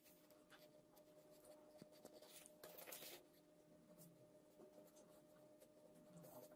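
Faint scratchy rustling of a polystyrene foam block being pushed and turned against a thin cutting wire, a little louder around the middle, over a faint steady hum.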